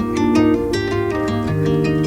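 Background music: plucked strings, harp- or guitar-like, picking a melody over a steady bass line.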